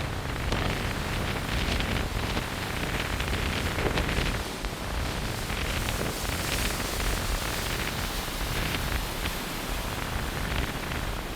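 Strong wind blowing over the microphone: a loud, rough rushing noise with a low rumble, swelling and easing in gusts.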